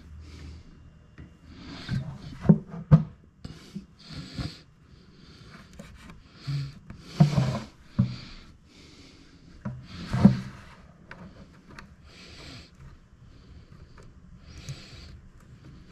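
Hands working on parts for the waterer: irregular knocks and clicks with short scraping or rubbing strokes, the sharpest knocks about three, seven and ten seconds in.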